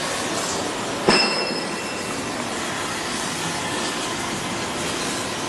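Circular saw blade grinding machine running, with a steady metallic grinding hiss. About a second in there is one sharp metallic clank that rings briefly.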